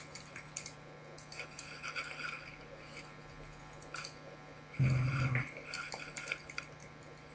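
Computer keyboard typing: scattered light key clicks over a faint steady low hum, with one brief louder low sound about five seconds in.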